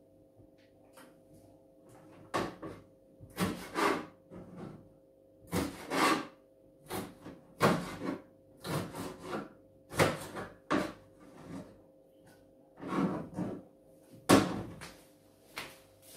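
Irregular knocks and clunks of kitchen things being handled and set down at a sink and counter, about one or two a second, over a steady low hum.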